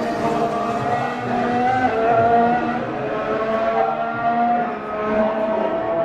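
2016 Formula 1 car's 1.6-litre turbocharged V6 accelerating hard up through the gears, its high engine note climbing and then dropping at each of several quick upshifts.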